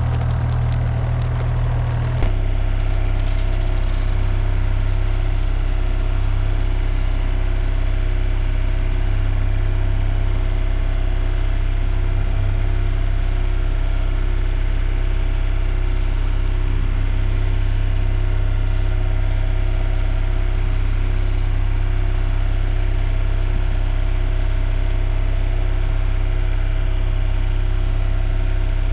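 An engine running steadily at a constant speed, its note changing once about two seconds in.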